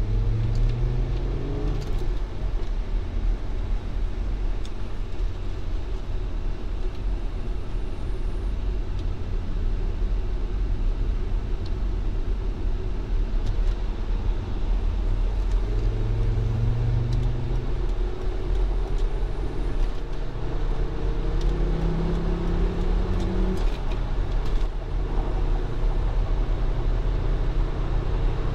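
Volvo S60R's turbocharged inline-five engine heard from inside the cabin at Autobahn speed, over steady road and wind noise. The engine note climbs in the first couple of seconds and again through the second half as the car accelerates, dips briefly near the end, then holds steady.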